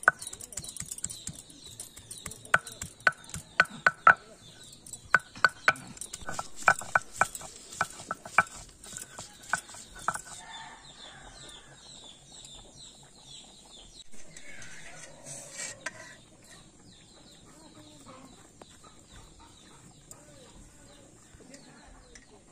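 Hens clucking in quick, sharp clucks, thickest in the first ten seconds and sparse after, over the soft scraping of a peeled vegetable being grated on a rough stone grinding slab.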